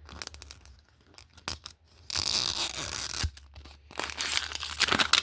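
Plastic wrap being torn off a Zuru Mini Brands capsule ball, with a few small crinkles and clicks, then two long ripping tears, the first about two seconds in and the second near the end.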